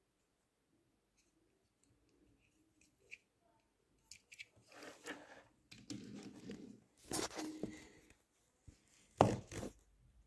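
Hot Wheels Koenigsegg Jesko die-cast toy car pushed back and forth by hand on a wooden desk. Its small wheels make several short rolling and scraping bursts, the loudest near the end. Before them there are a few faint clicks.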